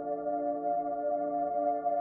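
Ambient background music of long held notes that shift slowly.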